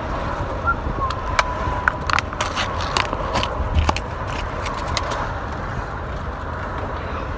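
Plastic blister packaging of a Hot Wheels toy car crackling and snapping as it is torn open by hand; the crackles are dense for the first few seconds, then thin out. A steady low rumble of the car's cabin runs underneath.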